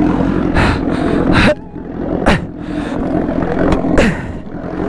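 A superbike engine runs steadily near idle, with several short breathy gasps from people straining to move the bike.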